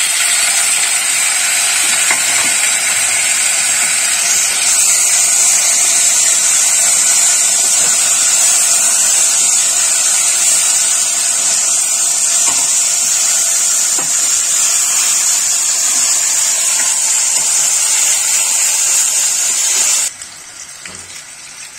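Diced potatoes frying in hot oil in a kadhai: a loud, steady sizzle that drops off sharply near the end.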